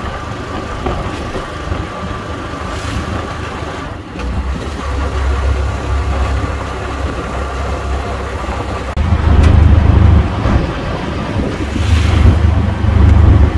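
Taxi car driving, heard from inside the cabin: a steady engine and road rumble that grows louder about four seconds in and again from about nine seconds in.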